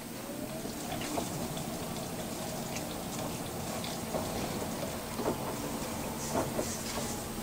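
LG VC2 washer-dryer's drum starting to turn in the wash cycle, with a brief rising motor whine, then water sloshing and splashing as the soaked duvet tumbles.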